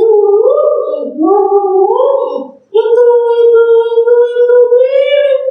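A high, child-like voice singing a short phrase with a few rising and falling steps, then holding one long note from about halfway through.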